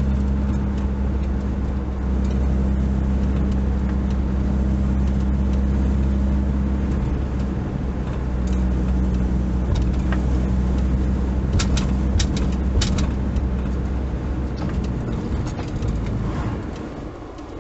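Cabin drone of a 1988 Toyota Hiace campervan's petrol engine and road noise while cruising, heard from inside the van. A few short clicks come about two-thirds through, and the engine note eases off near the end.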